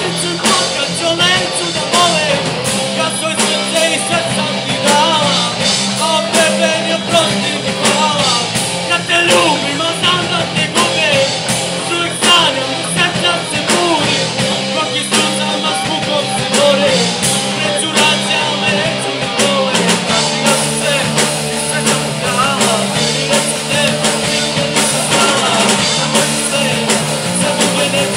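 Live punk-rock band playing loud: sung vocals over electric guitar, bass guitar and drum kit. The vocals drop out about twenty seconds in, leaving the band playing on.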